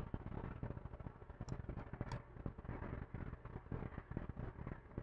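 Faint low rumbling background noise with scattered small ticks.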